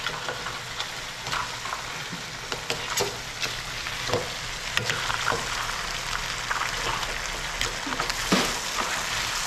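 Mud crab pieces sizzling in sauce in a wok over a gas flame, while a metal spoon stirs them, scraping and clicking against the pan at irregular moments.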